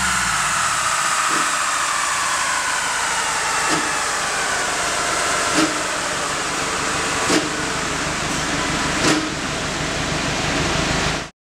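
A 2007 Subaru WRX wagon and the Dynojet dyno rollers winding down after a full-throttle third-gear pull: a whine that falls steadily in pitch as the wheels slow, with a sharp pop about every two seconds. The sound cuts off abruptly near the end.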